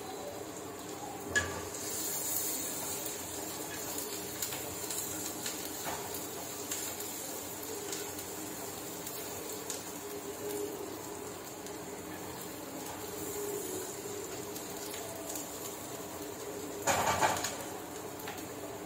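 Chopped onions frying in oil in a nonstick kadai, a steady sizzle, stirred with a wooden spatula. There is a sharp knock about a second in and a louder clatter of the spatula against the pan near the end.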